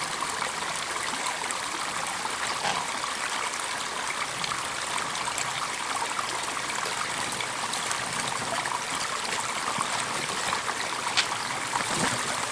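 Small mountain trout stream running steadily over rocks and riffles, a constant rushing of water, with one brief knock near the end.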